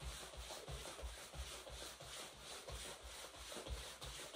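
Faint, soft thuds of feet on the floor from jogging in place, in a quick, even rhythm, with the jacket's fabric rubbing and rustling on each stride.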